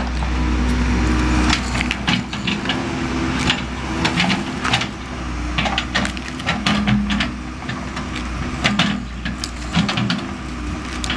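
Pine wood cracking and splintering in a series of sharp snaps, over the steady hum of a backhoe's engine running.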